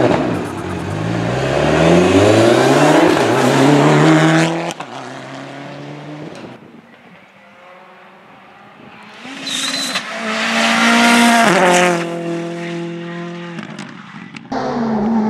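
Rally cars at full throttle on a stage. The first engine climbs in pitch through its gears, then cuts off suddenly. A few seconds of quieter engine sound follow, then a second car passes loudly holding high revs for a couple of seconds before that too breaks off.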